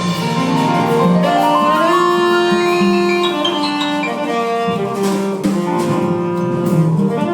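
Instrumental music from a song, with no singing: long held notes, a rising run of notes in the middle, and a plucked or keyboard accompaniment.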